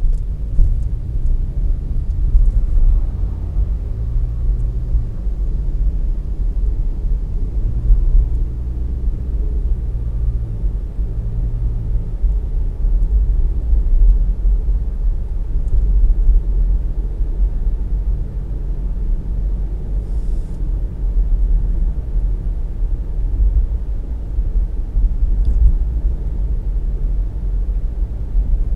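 Car driving on city streets: a steady low rumble of engine and road noise, with a low hum that comes and goes during the first dozen seconds.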